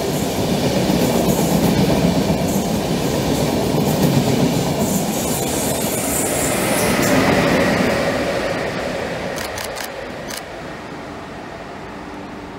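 A Railjet push-pull train rolling past at a station, its coaches' wheels clacking over the rail joints. Its ÖBB electric locomotive pushing at the rear goes by about six seconds in with a whine. The noise then fades as the train draws away, with a few sharp clicks near the end.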